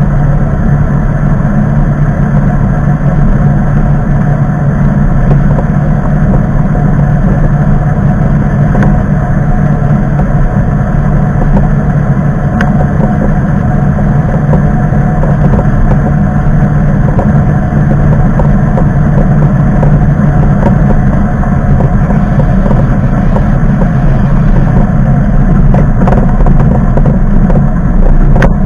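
A motor vehicle's engine running steadily, a loud low drone that holds the same pitch throughout.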